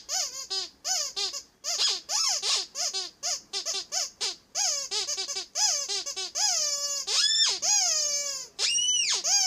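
Ledraplastic rubber squeaky duck toy being squeezed over and over. At first it gives quick short squeaks, several a second, each falling in pitch. From about two-thirds in, the squeaks turn longer and drawn-out, rising and then falling in pitch.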